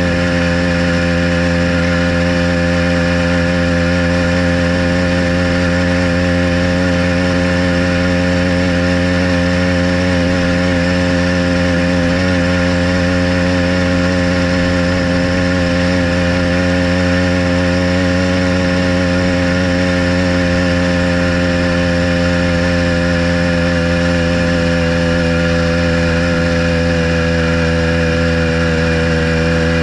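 Motorized bicycle's small petrol engine running at a steady pitch under way, holding an even speed.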